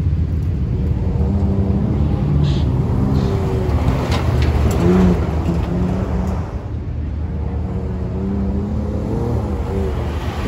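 Pickup truck engines running and revving as the trucks drive over a dirt track, a steady low rumble whose pitch rises and falls.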